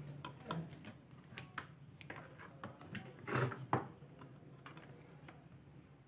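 Irregular light clicks and taps, like multimeter probes and small tools on a circuit board, with a louder cluster about three and a half seconds in, then quieter.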